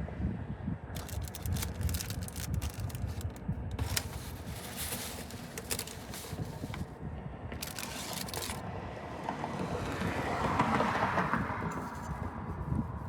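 Scraping and crackling handling noises in bursts, over a low wind-like rumble, with a louder rushing swell about ten seconds in that builds and fades.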